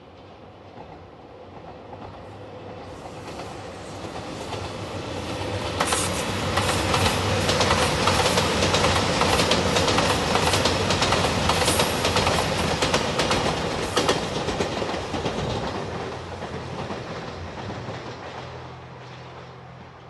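JR Shikoku 2700 series diesel limited express train approaching and passing close by: its engines build up, wheels click rapidly over the rail joints as the cars go past, and the sound then fades away.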